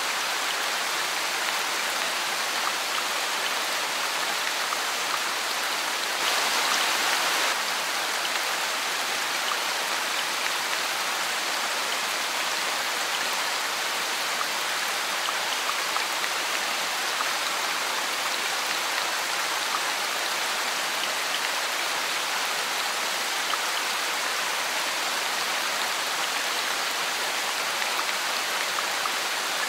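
Steady rain falling, a dense even hiss with scattered drop ticks, swelling briefly louder for about a second about six seconds in.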